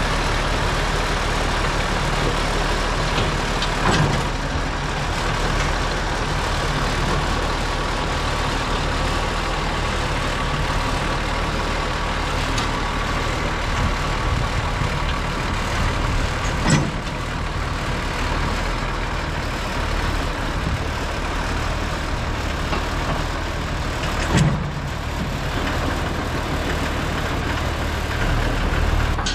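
Farm tractor engine running steadily at low speed, pulling another tractor off a trailer, with three short knocks about 4, 17 and 24 seconds in.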